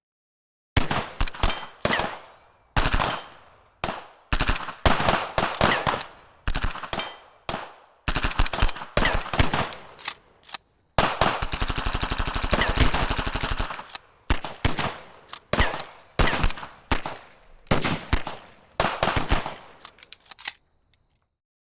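Automatic gunfire in short bursts of rapid shots, each burst followed by a brief pause, with one longer burst of about three seconds near the middle. The firing stops about a second before the end.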